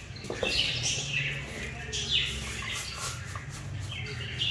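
Small birds chirping in short, quick downward-sweeping calls a few times, over a steady low hum.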